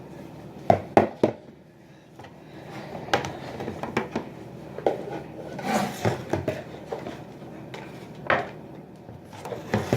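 A utensil clinking and scraping against a bowl while sticky slime is stirred: irregular sharp knocks, three in quick succession about a second in, then scattered ones.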